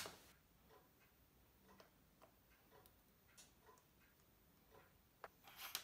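Faint, even mechanical ticking, about two ticks a second, with small clicks of a steel tool on a pocket watch movement; a louder clatter of tool-on-metal clicks and a brief scrape comes near the end.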